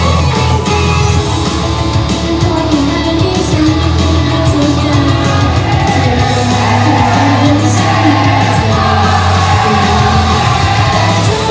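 Loud live performance of a heavy rock-styled idol pop song over a hall PA, with group singing and shouts from the crowd.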